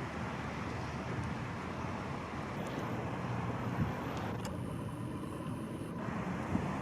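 Car driving along a road: a steady rush of road and engine noise.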